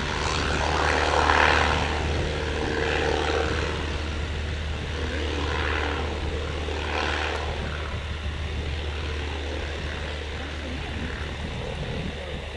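Single-engine propeller light plane at full power on its takeoff roll, a steady engine and propeller drone that fades slowly as the plane moves away down the runway.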